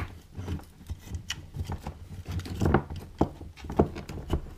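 A metal electrical box and a power cord being handled as the cable is pushed back into the box: irregular light clicks and small knocks, with rubbing.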